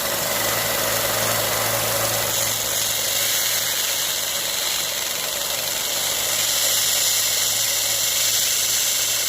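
Central Machinery 1 x 30 inch bench belt sander running steadily with a motor hum, sanding thin wood under light pressure; the hiss of the abrasive belt grows stronger about two and a half seconds in.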